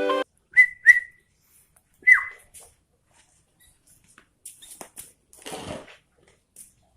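Caged sooty-headed bulbul (kutilang) giving three short whistled call notes, two close together and a third a little over a second later that slides down in pitch. Faint rustling and clicks follow.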